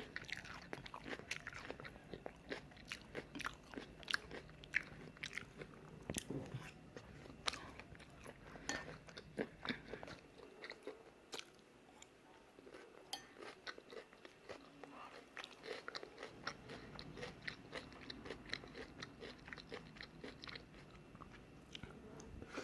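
Close-up eating sounds of someone chewing and biting stir-fried udon noodles, tofu and vegetables: a steady run of small, soft clicks and crunches.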